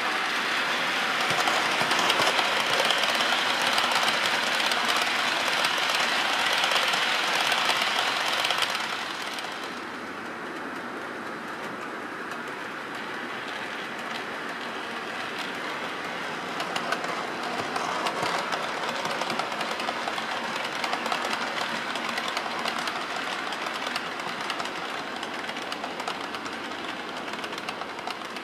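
OO gauge model trains running on the layout's track, giving a steady rushing noise of wheels on rail and motor. It is louder for about the first nine seconds, then steps down and stays quieter.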